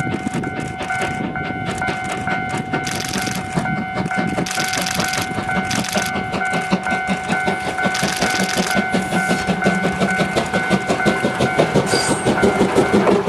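A Moka Railway train rolls by with a rapid, even clatter of wheels over the rail joints and several bursts of hiss. Through it, a level-crossing alarm rings with steady pulsing tones, then stops shortly before the end.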